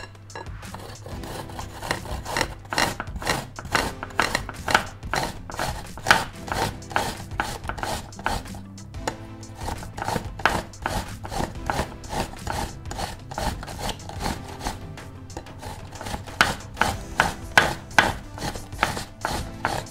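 A whole apple rubbed up and down a flat stainless-steel hand grater, a rasping stroke about three times a second, with a short pause about halfway through.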